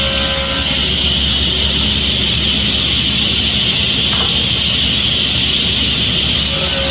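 A woodworking power tool running steadily, with a constant loud hiss and hum that does not change.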